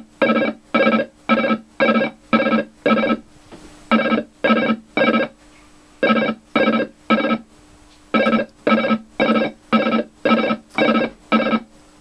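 Photophonobservotron MK2, a homemade lunetta-style logic synthesizer, sounding a steady buzzy electronic tone that is switched on and off in short pulses, about two a second. The pulses come in groups with short pauses between, a rhythm set by a 0 to 5 volt square wave fed to its external gate input.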